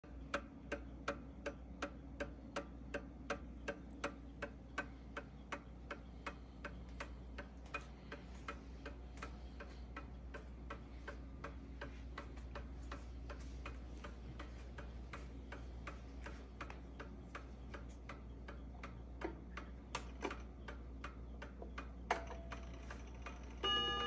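Sessions Westminster #27 mantel clock ticking steadily, nearly three ticks a second, loud at first and then fainter. Near the end a sharper click comes, and then the clock's chime rods start to ring.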